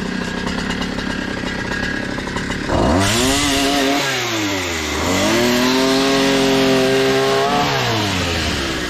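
Small two-stroke engine of an Einhell petrol multi-tool with an Oregon bar-and-chain pole-saw attachment. It runs at a low speed, then is revved up hard about three seconds in, dips briefly, and is revved and held again before dropping back near the end, as the chain cuts branches.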